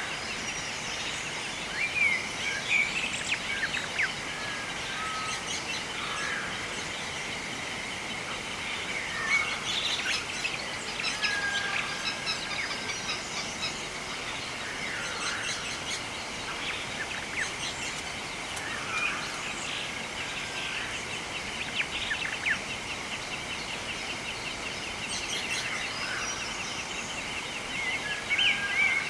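Several birds chirping and calling in short, scattered notes. Under them runs a steady high, rapidly pulsing trill, over a faint even hiss of outdoor background.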